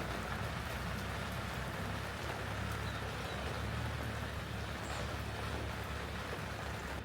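Steady rain falling, an even hiss with a low rumble underneath and a few faint drop ticks.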